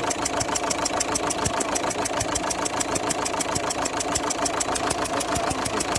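Opel Zafira 1.9 CDTI four-cylinder turbodiesel engine idling with a fast, even ticking clatter. Compression is escaping past the No. 2 injector, whose copper sealing washer needs replacing.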